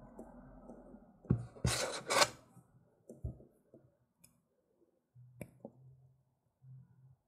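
A flat metal blade scraping and clicking against the seam of a BioLite CampStove's finned metal heatsink housing as it is pried at. Two sharp scrapes come about two seconds in, then scattered light clicks and ticks, with one sharper click about five seconds in.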